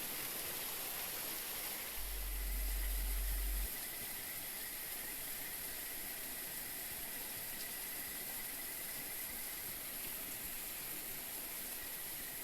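Steady outdoor hiss with a faint high steady tone, broken about two seconds in by a low rumble lasting under two seconds.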